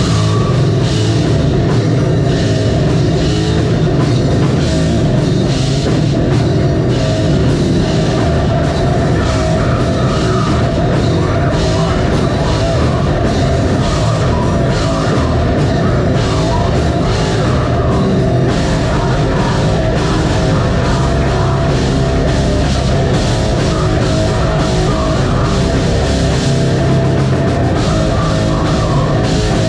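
A metal band playing live: distorted guitars, bass and a pounding drum kit, loud and steady, coming in hard right at the start.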